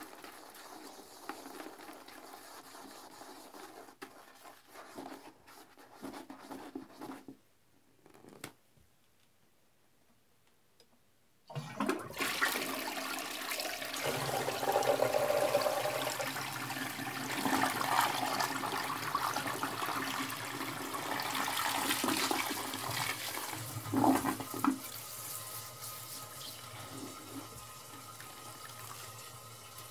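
A plastic toilet brush scrubbing a sudsy toilet bowl, then a brief hush, then a toilet flushing about twelve seconds in with a loud rush of water. The rush lasts about twelve seconds, then settles to a quieter steady flow as the bowl refills.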